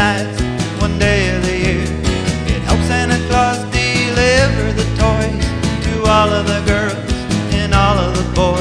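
Music: a country-style Christmas song with a sung vocal over guitar and a steady beat.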